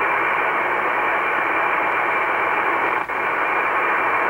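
Shortwave static from an Icom IC-R8500 communications receiver in lower-sideband mode: a steady hiss held within the narrow voice passband, with no station audible, as the receiver is tuned up toward 4 MHz. The hiss drops out briefly about three seconds in.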